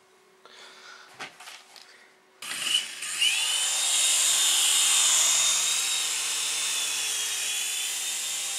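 Syma S107 toy helicopter's small electric rotor motors start suddenly about two and a half seconds in, a whine that rises in pitch and then holds as a steady high buzz while the helicopter lifts off and hovers.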